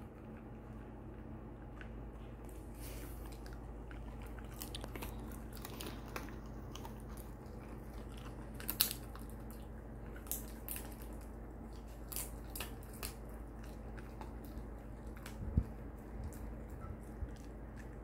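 Shiba Inu chewing a large bone-shaped treat: irregular crunches and smacks of its jaws on the crumbly chew, with two louder bites, one about halfway and one about three-quarters through.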